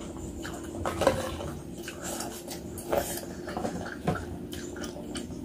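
Close-miked eating sounds: cutlery clinking and scraping against a bowl a few times, the sharpest clinks about one, three and four seconds in, over a faint steady hum.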